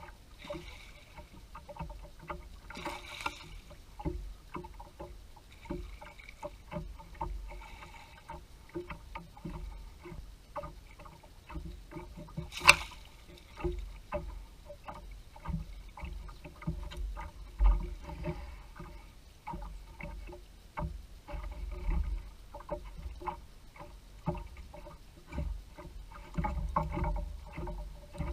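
Small boat on the water: light knocks and clicks against the hull over a low rumble of wind on the microphone, with one sharp click about halfway through and a heavier thud a few seconds later.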